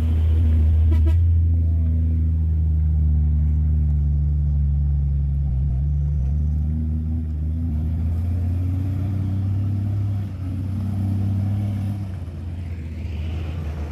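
Truck diesel engine running at a steady low pitch, with a brief rattle of clicks about a second in; it becomes quieter over the last few seconds.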